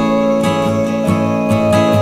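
Background music played on guitar, with strummed and plucked notes.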